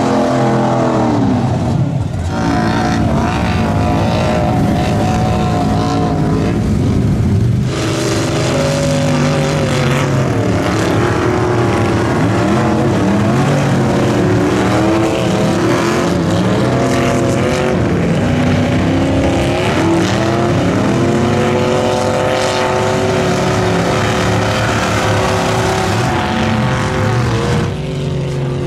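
Engines of lifted 4x4 mud trucks revving hard at high rpm as they drive through deep mud, the pitch climbing and falling again and again. The sound changes abruptly about two and eight seconds in.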